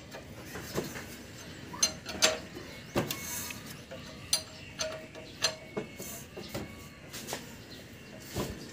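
Irregular metallic clicks and knocks from hand tools working at an engine's timing-belt end, a sharp tap every half second to second.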